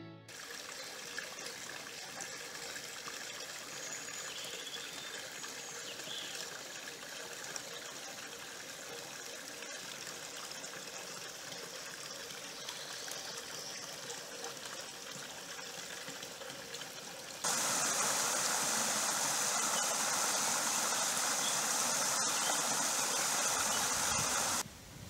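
A small mountain stream trickling and running over stones and leaf litter, a steady watery hiss. About seventeen seconds in it suddenly gets much louder and brighter, as a closer, faster-flowing stretch of the stream cascading over rocks, before dropping away just before the end.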